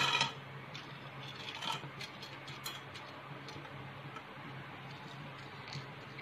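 Roasted split chickpeas (pottukadalai) tossed by hand into a steel pan with a little hot oil: a short rattling rush at the start, then scattered light ticks of grains and spices dropping into the pan, over a steady low hum.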